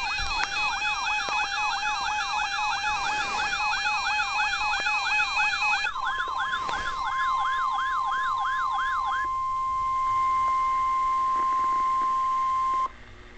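Electronic siren wailing rapidly up and down, about three sweeps a second, over a pulsing two-pitch tone. About six seconds in, the steady 1050 Hz NOAA Weather Radio warning alarm tone starts, signalling a warning alert. It cuts off abruptly about seven seconds later, leaving low radio hiss.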